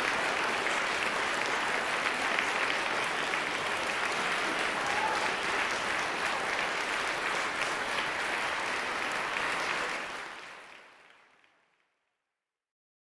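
Concert-hall audience applauding, many hands clapping at a steady level, fading away near the end.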